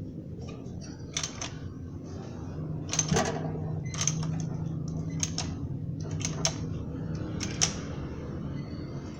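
Metal hand tools clinking: a series of sharp clicks and clinks, roughly one a second, over a low steady hum.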